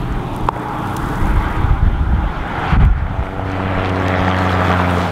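Wind rushing over the microphone, with a vehicle engine humming steadily underneath, louder in the last couple of seconds.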